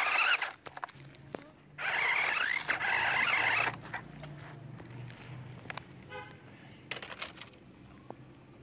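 Cheetah King 1:16 scale RC rock crawler whirring as it drives over gravel, in two bursts: a short one at the start and one about two seconds long shortly after. It then stops, leaving only faint outdoor background.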